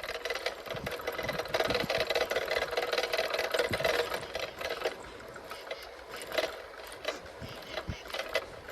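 Bicycle rear-hub freewheel whirring steadily while the bike coasts, then, about halfway through, breaking up into separate scattered clicks.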